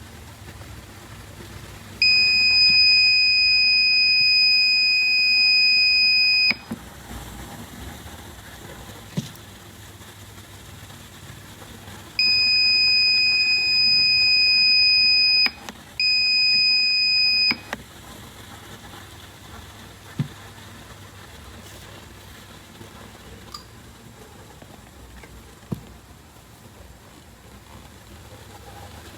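Buzzer of a laser tripwire alarm circuit sounding a steady high-pitched tone three times, for about four seconds, then three seconds, then a second and a half: the alarm tripped as the laser beam to the light sensor is interrupted. A few sharp clicks in between.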